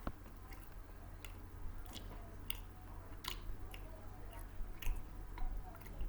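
A person chewing junk-food snacks close to the microphone, with irregular crisp crunches and mouth clicks about once every half second to a second.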